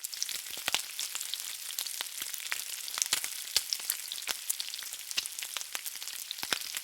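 A steady high hiss thick with sharp crackles and pops, a sizzling sound.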